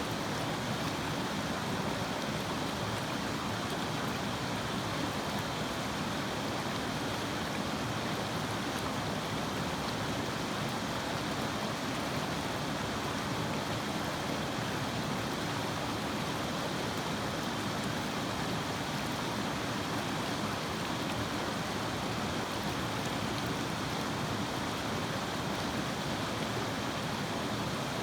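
River water flowing: a steady, even rush with no changes.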